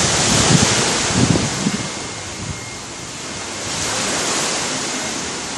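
Sea waves washing in, a steady hiss that swells again about four seconds in, with wind gusting on the microphone as low rumbles during the first two seconds.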